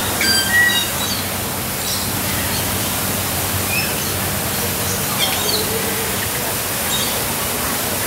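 Steady rushing of heavy rain together with a waterfall, with short bird chirps now and then.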